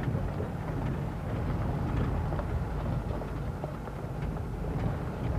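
Truck driving over a rough desert track, heard from its open cargo bed: a steady low rumble with scattered light rattles and knocks.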